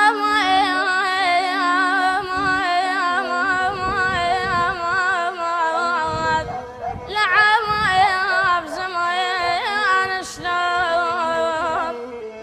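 A solo voice singing an Arabic mawwal: long melismatic phrases with wavering, ornamented held notes, two phrases with a brief breath between them about six and a half seconds in.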